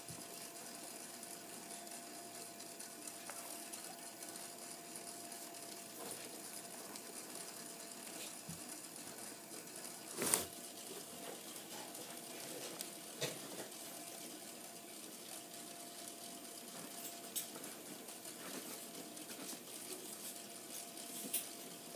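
Faint handling noises of dolls and toy pieces being moved about: a few small clicks and knocks, the loudest about ten seconds in, over a faint steady hum.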